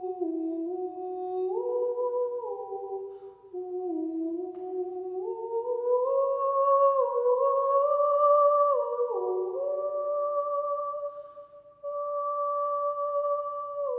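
A slow wordless melody hummed by a single voice, moving in steps between long held notes with short slides between them. It climbs to a higher register partway through and dips briefly twice.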